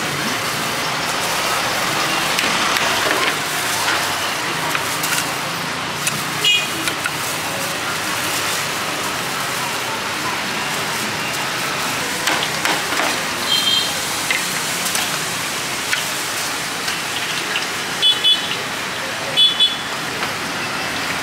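Steady street traffic noise from passing motorbikes and cars, with a few short high-pitched beeps.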